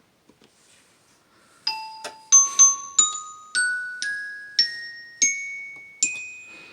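Casio LK-222 electronic keyboard's glockenspiel voice playing a rising run of about nine notes. Each note strikes and rings out as it fades.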